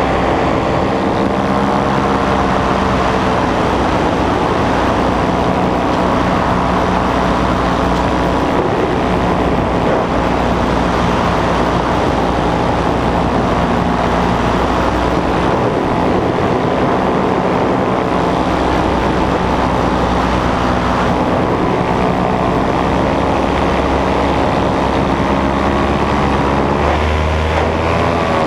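Nitro 200 paramotor's two-stroke engine and propeller running steadily in flight, with wind rushing past the microphone. Near the end the engine's pitch shifts.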